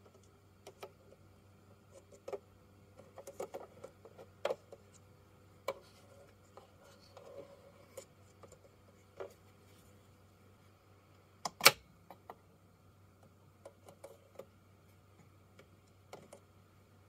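Scattered light clicks and taps of a plastic handheld voltage detector being moved against a switched-on contactor's terminals, with one sharper click about two-thirds of the way in. A faint steady low hum runs underneath.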